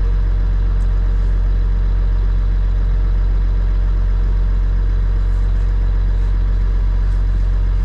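Case IH Steiger tractor's diesel engine idling steadily, heard from inside the cab as an even low hum.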